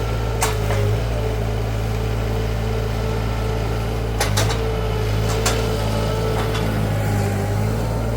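Wacker Neuson SM120 mini skid steer's engine running steadily at a constant pitch, with a few sharp knocks, twice around the middle and once near the start.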